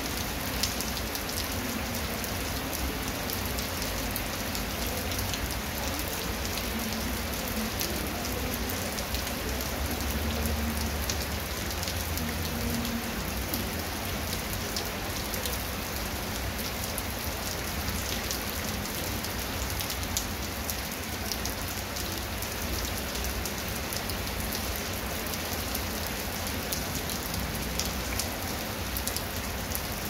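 Heavy rain falling steadily on a wet concrete path and grass, with many separate drop hits heard through an even hiss.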